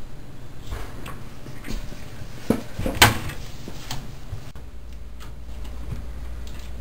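Several knocks and clunks on a wooden desk, the two loudest about two and a half and three seconds in.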